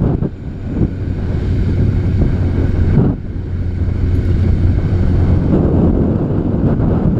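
Honda CBR900RR Fireblade's inline-four engine running steadily as the motorcycle rides along, mixed with heavy wind rushing over the microphone. The sound dips briefly about three seconds in, then builds again.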